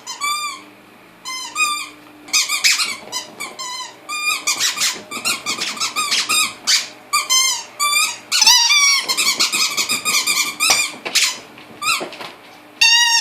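Squeaky toy ball squeaked over and over in rapid runs of short, wavering, high-pitched squeaks, almost without pause, with brief breaks between runs.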